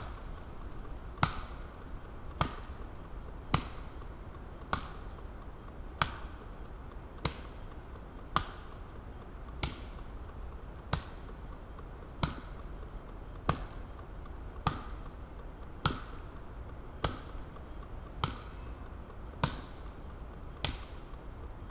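Axe chopping wood, most likely the Wetterlings Forest Axe: steady, evenly spaced strokes a little over a second apart, each a sharp knock with a short ring.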